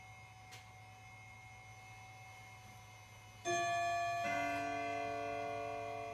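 Two bell-like chime notes struck about a second apart, starting about three and a half seconds in, ringing on and slowly fading over a low steady hum.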